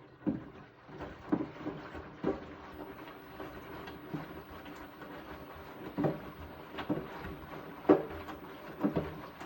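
Beko WTK74011W washing machine running a bedding wash: the drum turns over a steady running noise, with irregular dull thumps about once a second as the wet load tumbles.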